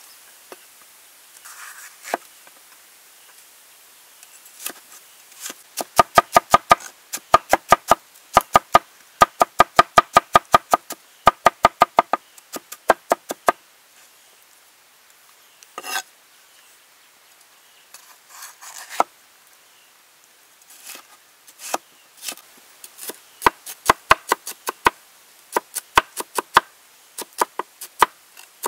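Cleaver chopping bell peppers on a thick wooden cutting board: runs of quick, sharp knocks, about three to four a second, broken by short pauses and a few single knocks.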